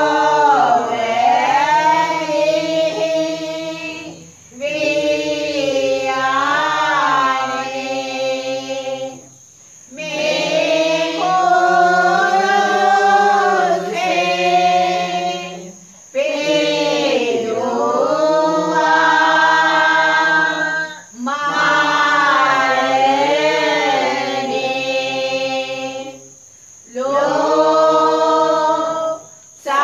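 A group of voices singing a Sinhala pasan, a Lenten Passion hymn. They sing long sustained phrases, each broken by a short pause for breath about every five seconds.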